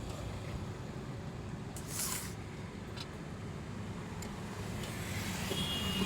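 Steady low rumble of a motor vehicle running, with a short hiss about two seconds in and a few light clicks.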